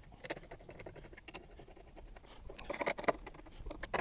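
Hand screwdriver driving screws through a steel mobile-base corner bracket into plywood: irregular scratchy turning strokes and small clicks, a little louder about three quarters of the way through.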